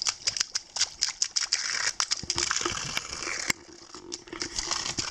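Footsteps crunching through dry leaf litter and twigs on a forest path, many short sharp crackles, over a steady hissing rush of spring water running from a hose.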